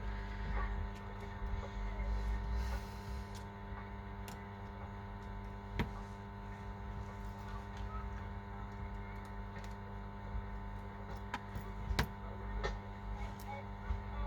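Steady electrical mains hum with scattered small clicks and taps, two of them sharper about six and twelve seconds in, from hand tools working on an iPhone during a screen replacement.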